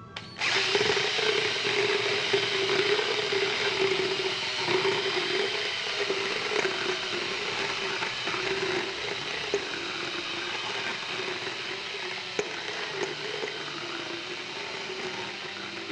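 Motorized equine dental float, a cordless drill driving a guarded rotary carbide-chip disc, running and grinding a horse's cheek teeth. It starts about half a second in and goes on steadily, a wavering motor hum under a harsh grinding hiss, easing off slightly toward the end.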